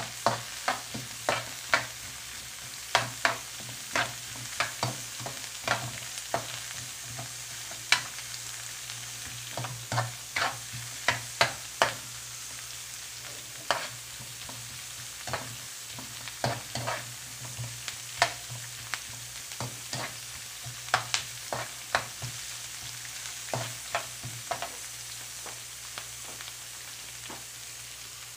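Sliced onions, garlic and curry leaves frying in olive oil in an aluminium wok, a steady sizzle, as a metal spoon stirs and scrapes against the pan in irregular clinks. The clinks come thickly at first, thin out in the second half and stop a few seconds before the end.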